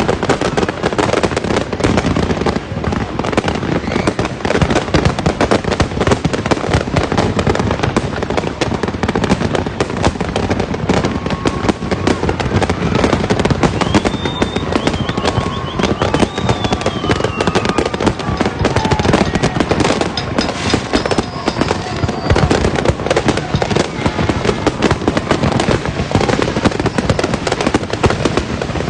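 Many fireworks and firecrackers going off at once: a dense, nonstop crackle of bangs. Around the middle, a few whistles glide in pitch above the din.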